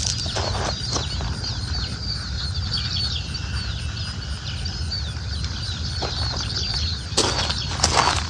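Small birds chirping in many quick, overlapping calls over a steady low rumble, with a couple of sharp knocks near the end.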